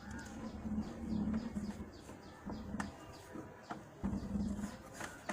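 Birds calling, with a few short low phrases repeated about every second or two.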